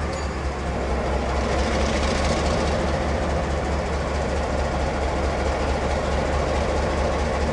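EMD G12 diesel locomotive's two-stroke V12 engine running at idle with a steady, rhythmic low exhaust beat, a Harley-Davidson-like lope.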